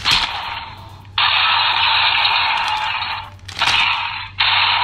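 A large Thanos action figure's electronic sound effects playing through its small built-in speaker as harsh, hissing blasts. There is a burst at the start that fades, then a long blast of about two seconds, a short one, and another long one near the end.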